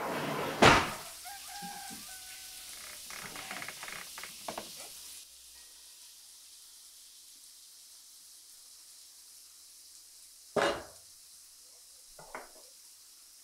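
Hot water poured from a metal kettle into a wooden mate gourd: a hissing pour that begins with a sharp knock and stops abruptly about five seconds in. Two short knocks follow near the end.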